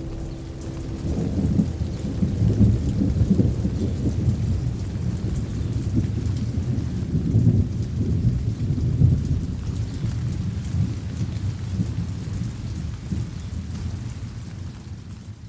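Rain falling with long, rolling thunder rumbling under it, swelling a couple of seconds in and fading slowly away at the end.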